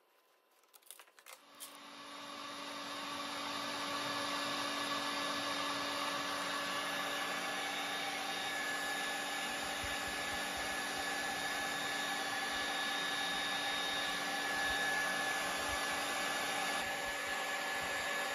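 Portable line boring machine's drive starting up after a few light clicks, building up over a couple of seconds, then running steadily with an even hum and high steady tones as the boring bar turns on the final cut through the bore.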